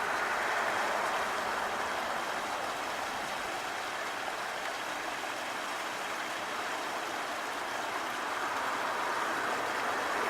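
Steady rush of a stream's flowing water spilling over a small waterfall.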